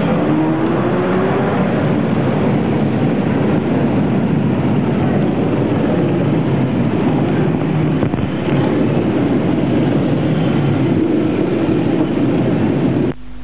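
Motorcycle engines running together in a mass ride, heard as a loud, steady, muddy din. One engine's pitch rises in the first second or so, and the sound drops out briefly near the end.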